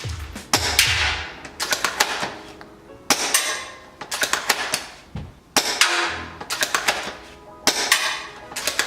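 Spring-powered bolt-action airsoft sniper rifle (Specna Arms SA S02, an M40A3 replica) fired repeatedly: a sharp crack about every two seconds, each followed by a quick run of clicks as the bolt is cycled for the next shot. Background music plays throughout.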